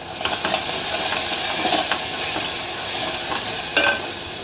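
Ground spices, garlic and sprouts sizzling in hot mustard oil in a kadhai as they are stirred with a steel spoon. A loud hiss swells at the start and holds, with a few light scrapes and clicks of the spoon against the pan.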